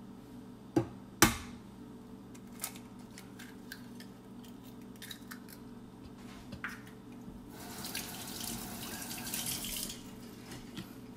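A hen's egg cracked against the rim of a glass mixing bowl: two sharp knocks about a second in, then a few small ticks as the shell is opened. Later a tap runs for about two and a half seconds.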